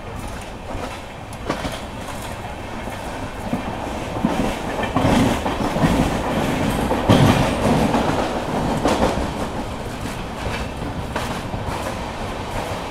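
Indian Railways sleeper-class coach running at speed: a steady rumble with its wheels clicking over rail joints. It grows louder for a few seconds in the middle, then settles back.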